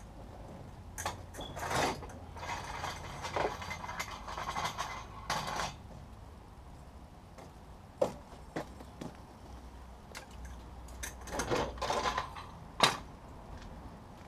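Motorcycle front brake caliper and hand tools being handled: two stretches of scraping and rattling, with sharp metal clicks. The loudest click comes near the end.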